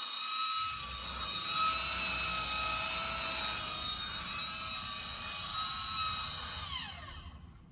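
Motorised roof vent lid whining steadily as it opens, its pitch falling away as the motor stops near the end.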